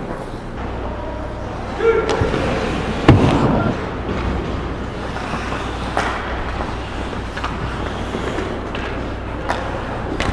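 Ice hockey rink sounds: skates scraping over the ice, with a few sharp knocks of sticks and puck. The loudest knock comes about three seconds in.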